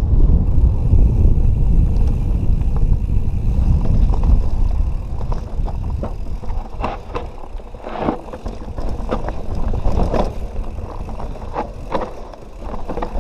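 Wind buffeting the microphone of an action camera on a Canyon Nerve 27.5 mountain bike rolling along the trail. About five seconds in the wind rumble drops away, and the bike rattles with scattered sharp knocks and clicks.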